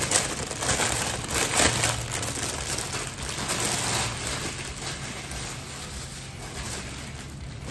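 Clear plastic garment bag crinkling as a folded sweatshirt is pulled out of it, then cloth and tissue paper rustling. The crackling is loudest in the first two seconds and grows softer after.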